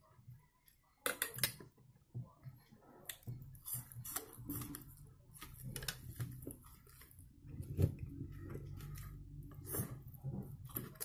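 Close-up eating sounds: a man chewing smoked mackerel and boiled potatoes, with a few sharp clicks of a fork on the plate in the first three seconds.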